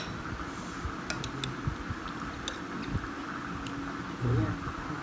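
A few faint clinks of a spoon against a bowl over a steady background hiss, with a short low hum a little after four seconds in.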